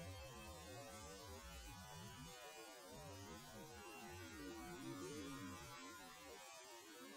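Near silence with a faint low hum.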